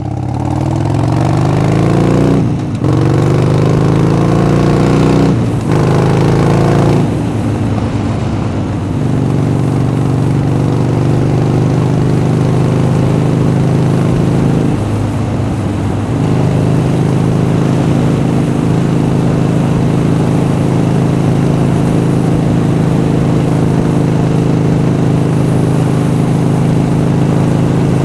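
Harley-Davidson Sportster Seventy-Two's 1200 cc air-cooled V-twin accelerating hard. The engine note climbs and drops back three times in the first eight seconds or so as it shifts up through the gears. It then runs at a steady cruise, with a brief dip about fifteen seconds in.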